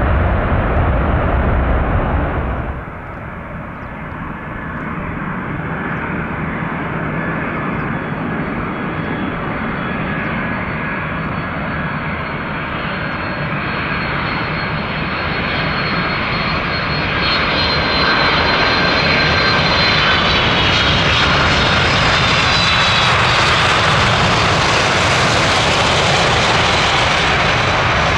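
Jet airliner engines. The sound drops sharply about three seconds in, then builds steadily as the aircraft draws nearer, with a high whine coming in over the second half and holding loud.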